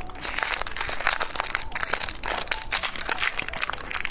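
Crinkly plastic snack wrapper being handled and peeled open, a dense run of crackles. It is the wrapping of an umbrella-shaped biscuit snack.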